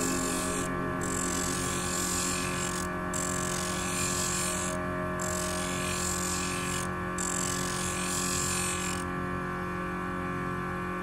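A lapidary grinding wheel's motor hums steadily while an opal on a dop stick is ground against the wheel, giving a hiss in passes about two seconds long with short breaks as the stone is lifted and pressed again. The grinding hiss stops about nine seconds in, leaving the motor hum.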